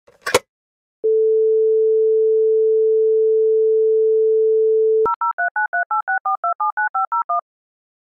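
Telephone handset lifted with a click, then the French dial tone, a steady single tone, for about four seconds. It gives way to fourteen quick DTMF key-tone pairs dialing the international number 00 39 386 4279501, an Italian mobile.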